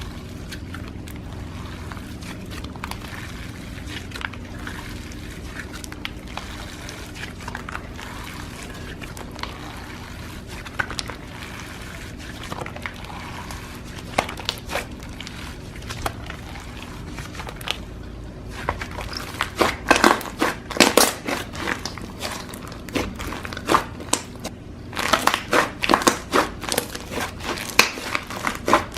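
Slime being squished and pressed by hand: soft squishing with scattered faint clicks, then dense clusters of quick crackling pops and clicks about two-thirds of the way through and again near the end.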